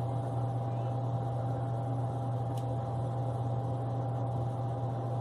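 A steady low hum that does not change, with a fainter steady higher tone above it and one faint click about two and a half seconds in.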